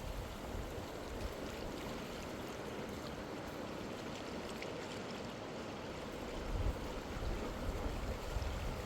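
Steady rush of flowing stream water, with wind buffeting the microphone in low gusts, strongest from about two-thirds of the way in.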